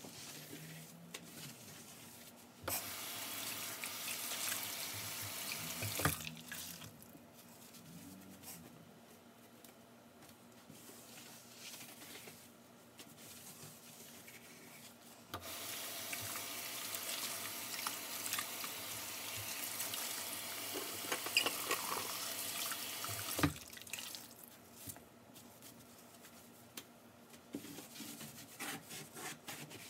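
Kitchen sink tap running into the sink twice, for about three seconds and then for about eight seconds, each turned on and off abruptly. Between and after the runs, light knocks of items being handled.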